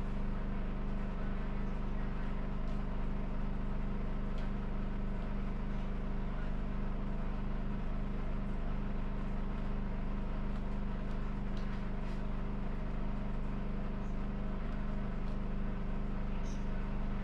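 Steady droning hum of a running machine, unchanging throughout, with a few faint ticks.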